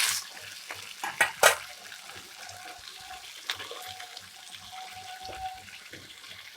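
Freshly added cauliflower florets sizzling softly in hot oil in a pan, with two sharp knocks against the pan about a second in and a few lighter clicks.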